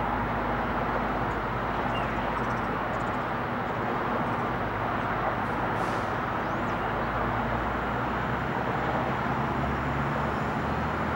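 Steady distant rumble of airport and road traffic, with a few faint bird chirps.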